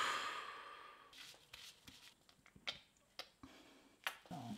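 A woman's sigh: a breathy exhale at the start that fades away over about a second. Faint small clicks follow, and a brief murmur of her voice comes near the end.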